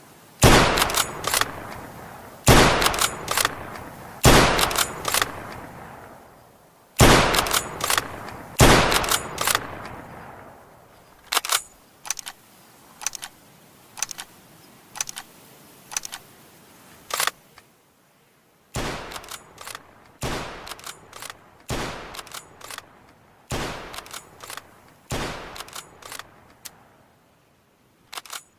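Mosin-Nagant bolt-action rifle (7.62×54mmR) firing: five loud shots with long echoing tails in the first nine seconds. Then comes a run of shorter, sharper cracks and clicks, and after that another series of quieter shots, each with its own tail.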